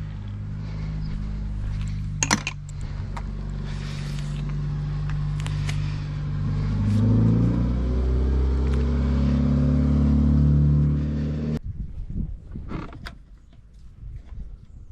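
Car engine running steadily, its speed rising about seven seconds in and holding higher, with a sharp click about two seconds in. The engine sound stops abruptly near the end, followed by a few light knocks.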